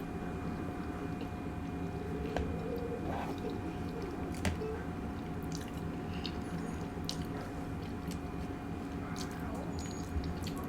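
Close-miked chewing and wet mouth sounds, with scattered small clicks and smacks, over a steady faint hum.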